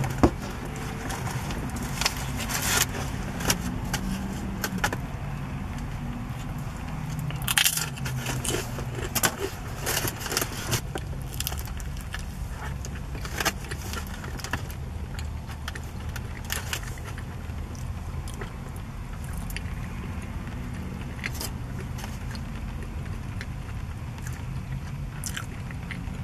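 Close-up eating sounds from a foil-wrapped burrito: sharp crinkles and clicks of the aluminium foil, with biting and chewing. The clicks are most frequent in the first two-thirds and thin out toward the end, over a steady low rumble.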